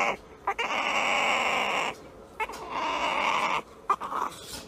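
A small puppy making rough, drawn-out growling noises, three in a row, each about a second long.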